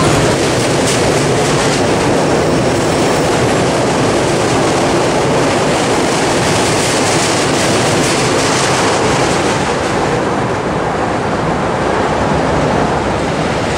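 Chicago "L" rapid-transit train moving past close by along a station platform, with the steady, loud running noise of its wheels on the rails. The noise eases slightly about ten seconds in.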